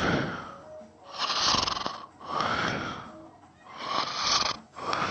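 A sleeping person snoring: loud, noisy breaths in and out in a steady rhythm, about two full breaths.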